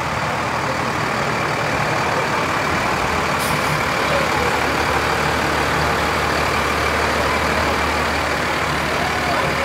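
Diesel engine of a Dennis fire engine running as the truck drives slowly past at close range, a steady low engine note that is loudest in the middle as it goes by.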